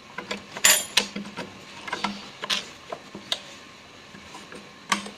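Clicks and short scrapes of a screwdriver and cloth working over the metal parts of a sewing machine during cleaning, scattered irregularly, with the loudest scrape under a second in and a sharp click near the end.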